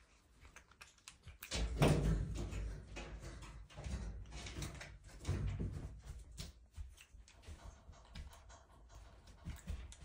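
Scattered clicks and knocks, with two heavier low thumps about two seconds and five seconds in, as a white-faced capuchin monkey moves about its small cage.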